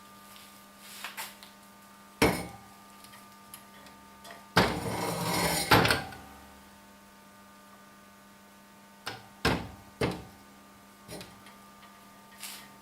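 A few sharp knocks and clunks, with a rough scraping noise lasting about a second and a half near the middle, over a steady electrical hum.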